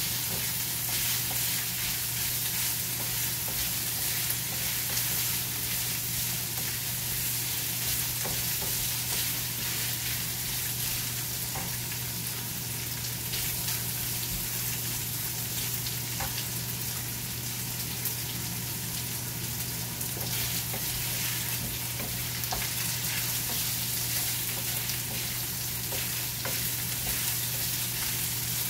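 Sliced meat sizzling and frying in a non-stick frying pan on a gas burner, stirred with a wooden spatula that now and then gives small clicks against the pan.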